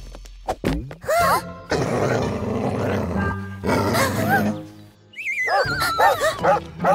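Cartoon dog growling, then barking several times near the end, over background music.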